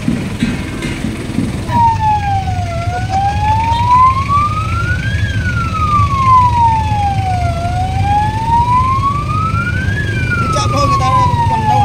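A vehicle siren wailing slowly, its pitch rising and falling in an even cycle of about five seconds, starting about two seconds in. A vehicle engine runs steadily underneath.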